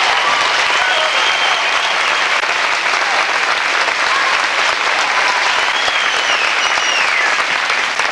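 Audience applauding steadily, with a few high whoops rising and falling over the clapping.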